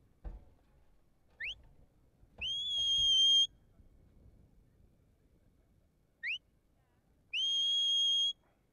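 A sheepdog handler's whistle gives the same command twice. Each command is a short rising chirp followed about a second later by a long held note. These are whistle commands directing the sheepdog as it drives the sheep.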